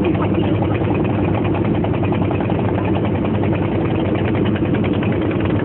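An engine running steadily at an even pace, with a constant low hum and fast, even pulsing.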